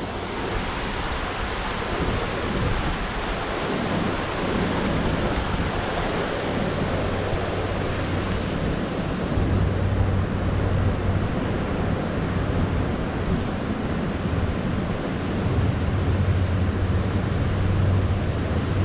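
Steady rushing wash of wind on the microphone and flowing river water, with stronger low rumbling buffets about ten seconds in and again near the end.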